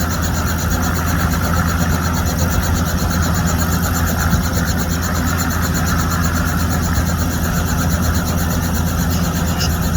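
Tour helicopter running on the ground while passengers are loaded, a loud steady drone with a fast, even pulsing.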